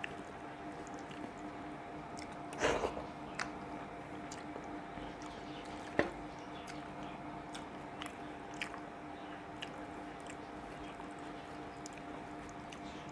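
Eating by hand: soft chewing and wet squishing as fingers work rice and mashed potato on a ceramic plate, with scattered small clicks, a louder squelch about two and a half seconds in and a sharp click about six seconds in. A steady faint hum runs underneath.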